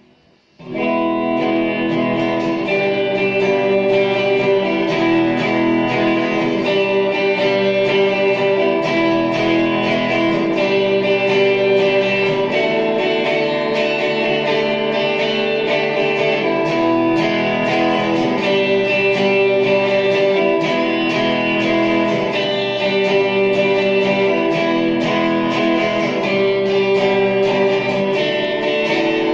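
Epiphone Les Paul SL electric guitar being played: chords strummed in a steady rhythm, starting just under a second in.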